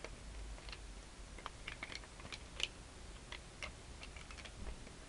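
Faint, irregular light clicks of the plastic tiles of a Rubik's Magic folding puzzle being flipped and folded by hand, about a dozen spread across the few seconds.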